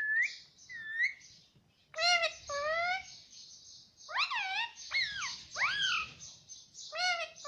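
Pet ring-necked parakeet calling: about a dozen short, high-pitched notes that glide up and down, coming in quick pairs and groups with short gaps between.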